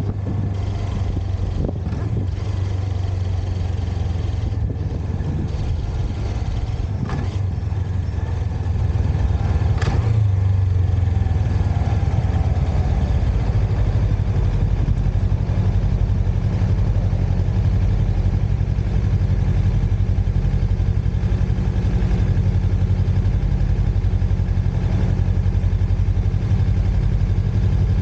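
Motorcycle engine running steadily, heard from the rider's own bike; it grows louder about nine seconds in and then holds an even hum.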